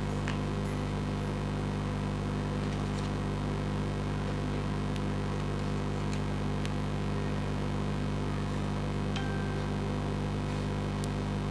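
Steady electrical hum with hiss, unchanging throughout, with a few faint light ticks scattered through it.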